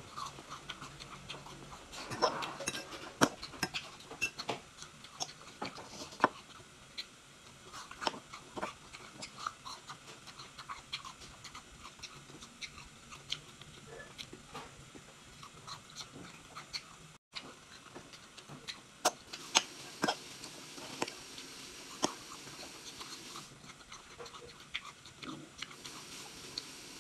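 Close-up eating sounds: chewing and mouth noises while eating salad and toast, with irregular sharp clicks of a fork against the plate.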